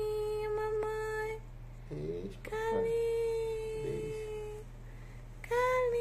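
A voice humming three long, steady notes, all at the same pitch and each one to two seconds long, with brief soft vocal sounds in the gaps between them.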